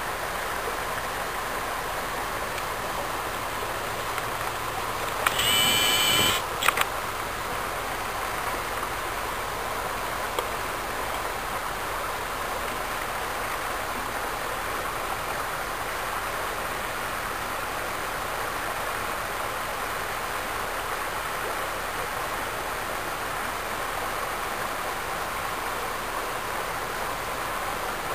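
Shallow creek water running steadily over a gravel bed. About five seconds in there is a short pitched sound lasting under a second, and a click comes just after it.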